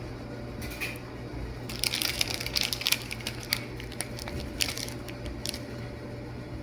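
Irregular crackling and rustling handling noises, thickest about two to three seconds in and again briefly near five seconds, over a steady low hum.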